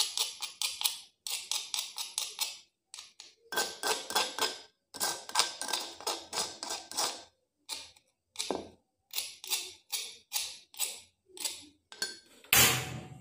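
A metal spoon scraping ground chili-and-spice paste around a stone mortar and off its stone pestle, in quick runs of gritty scrapes broken by short pauses. Near the end comes a sudden loud rush of noise, then a low steady rumble.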